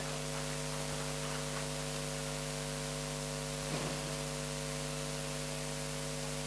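Steady electrical mains hum with a hiss, several fixed tones held at a constant level, from an open microphone and sound system with no one speaking.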